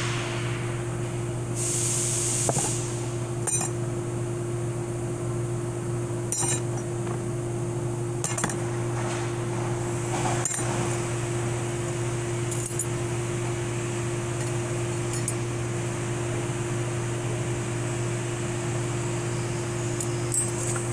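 Light metallic clinks of 4L60E transmission clutch plates, steels and frictions being handled and set down, one every two to three seconds, over a steady background hum.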